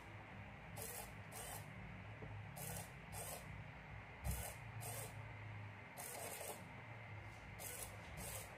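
Micro servo motor whirring in short bursts, often two close together, several times over: the servo swings each time the capacitive proximity sensor detects the metal tool held near it. A low steady hum lies beneath.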